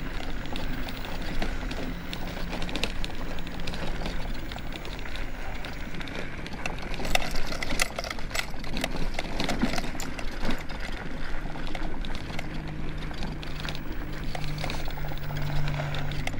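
Scooter running along a rough dirt trail: a low motor hum that grows stronger near the end, over a constant rattle and clatter of the wheels on the bumpy ground.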